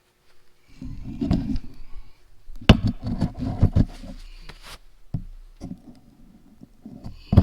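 A run of knocks and bumps with low rumbling handling noise, in two clusters: about a second in, and again from just under three seconds to nearly five seconds in, followed by a few scattered clicks.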